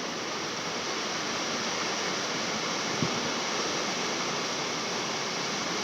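Steady, even hiss of background noise, with one light click about three seconds in.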